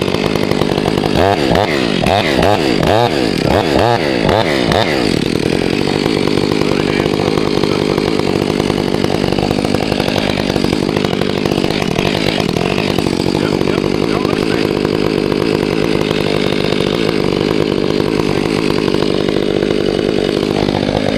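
Chainsaw revved up and down several times in the first few seconds, then held at high revs, cutting steadily through wood.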